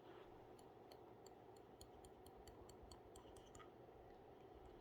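Near silence: room tone with a faint run of light ticks, about three or four a second, that stop about a second before the end.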